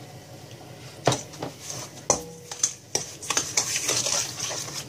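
Sugar being mixed with a hot water and sour cream mixture in a stainless steel bowl: scattered knocks and clicks against the metal bowl starting about a second in, then wet, gritty scraping and squishing of the sugar.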